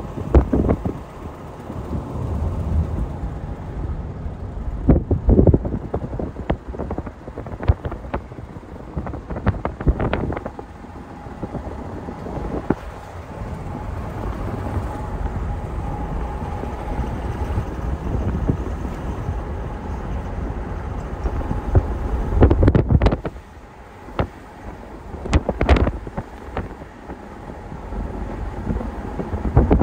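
Vehicle on the move: a low, steady road and engine rumble with wind buffeting the microphone, broken by a few sharp knocks and bumps, the loudest a little over twenty seconds in.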